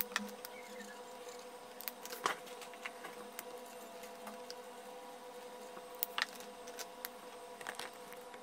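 Ohuhu alcohol markers being handled while colouring: scattered sharp plastic clicks and taps of caps and barrels, with softer scratching of marker tips on paper between them, over a faint steady hum.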